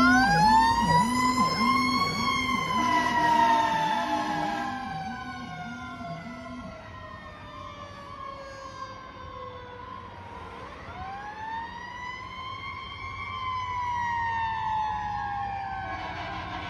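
Fire truck siren wailing as the 2019 KME Predator tower ladder drives away: the tone climbs over about two seconds, slides slowly down, then climbs and falls again. A lower, faster warble pulses underneath for the first several seconds, and the sound grows fainter as the truck moves off.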